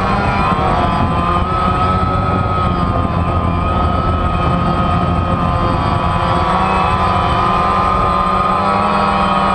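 DJI Phantom quadcopter's electric motors and propellers whining steadily in flight, heard from the drone's own on-board camera. The whine's pitch wavers slightly as the motors change speed, over a steady low rumble.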